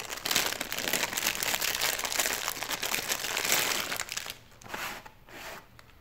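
Clear plastic bag crinkling as it is handled and a keypad reader is pulled out of it: dense crackling for about four seconds, thinning to a few brief rustles after that.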